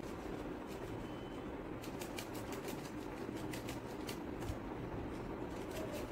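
Bangles on a moving wrist clicking lightly against each other while makeup is dabbed onto the face: a quick, irregular run of small clicks starting about two seconds in, over a steady background hiss.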